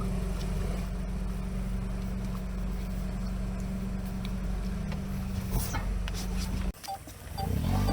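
ATV engine idling steadily. It cuts off abruptly near the end, and after a brief lull an engine revs up, its pitch rising.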